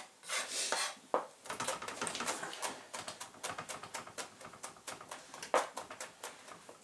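Kitchen knife rapidly chopping fresh red chilli finely: quick strikes of the blade, several a second, with a few slower cuts at first and one louder knock near the end.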